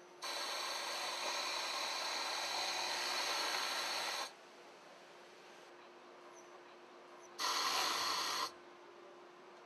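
Pegasus five-thread industrial overlock sewing machine running at high speed as it stitches fabric, in two runs: about four seconds from just after the start, then a shorter burst of about a second near the end. Each run starts and stops abruptly.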